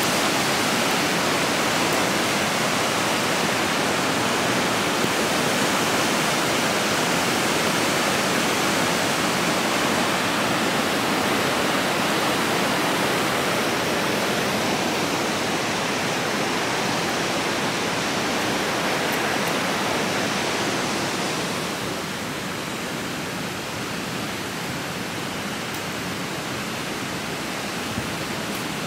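Water rushing out of a dam's outlet culvert and churning into a concrete spillway channel: a steady, dense rush of white water that drops somewhat in level about two-thirds of the way through.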